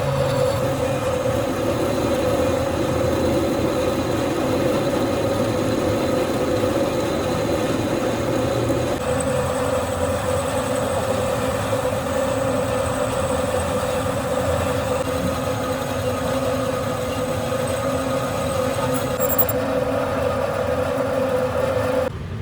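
Manual lathe running steadily with a constant whine from its drive. A rougher noise underneath thins out about nine seconds in, and the whine cuts off abruptly near the end.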